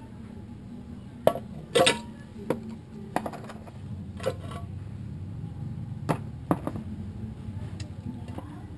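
Metal scooter CVT parts, including the aluminium transmission cover, clinking and knocking against each other and the basin as they are washed by hand: about seven sharp knocks, the loudest about two seconds in, over a low steady hum.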